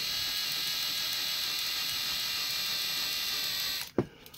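Power drill running with a steady high-pitched whine as it drills out a rivet in a die-cast model truck's plastic chassis, then stopping near the end, followed by a short click.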